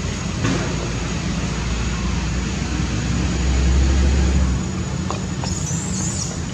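Steady low rumble of outdoor background noise, swelling for about a second midway, with faint high chirps near the end.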